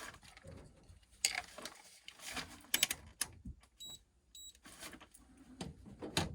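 Scattered handling noises of work on a furnace cabinet in a tight space: short clicks, knocks and rustles. About four seconds in come two short, high electronic beeps close together.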